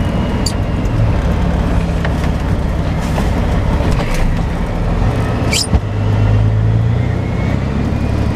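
Semi-truck diesel engine running at low speed, heard from inside the cab as the truck creeps and turns, with a steady low hum that gets a little louder after a single sharp knock a little past the middle.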